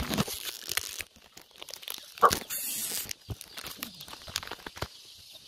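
Handling noise from a handheld phone: fingers rubbing and knocking on the phone, making irregular clicks and crinkling, with one sharper knock about two seconds in.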